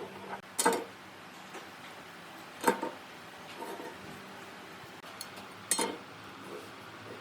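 Three sharp knocks a couple of seconds apart, with a few fainter taps between: tools and pieces of wood being handled and set down.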